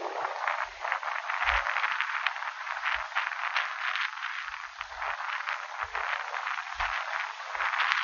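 Strong wind blowing across a phone's microphone: a rough, crackling hiss with scattered low thumps of gusts hitting the mic.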